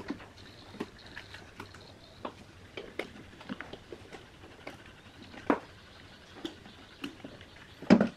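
Hands handling parts inside an opened power amplifier: scattered light clicks and knocks as wires and connectors are moved. The loudest clunk comes just before the end, as the finned aluminium heatsink of an output board is gripped and shifted.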